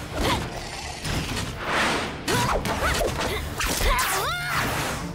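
Cartoon action sound effects for charging robot dinosaurs: a run of whooshes and mechanical clanks and impacts, with short gliding, warbling cries around three to four and a half seconds in.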